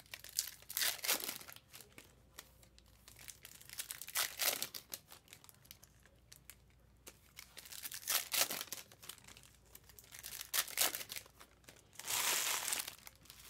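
Foil wrappers of trading card packs crinkling and tearing as packs are opened by hand, in scattered short bursts with a longer rustle near the end.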